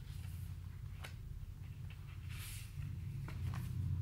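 Faint paper rustling and a few soft clicks as the pages of a picture book are handled and turned near the end, over a steady low room hum.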